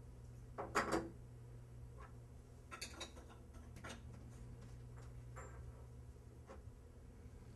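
Faint clicks and knocks of faucet trim parts being handled and fitted back on during reassembly of a Pfister kitchen faucet, a few irregular taps with the loudest a double knock about a second in. A steady low hum runs underneath.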